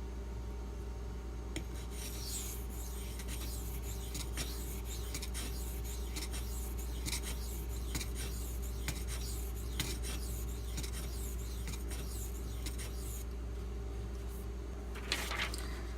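Steel knife edge scraped in repeated, irregular strokes across a silicon carbide sharpening stone, with a brief pause and louder strokes near the end.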